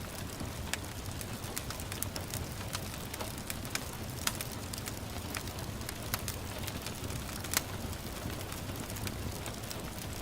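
Wood fire crackling, with irregular sharp pops and one louder pop about three-quarters of the way through, over a steady hiss and low rumble of gentle rain.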